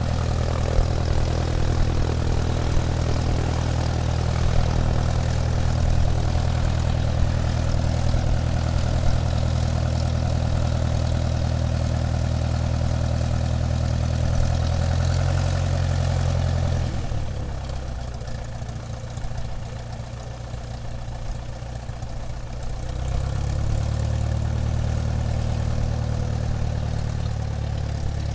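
Airplane engine running while taxiing: a steady low drone that drops off a little past halfway, stays lower for about six seconds, then builds back up.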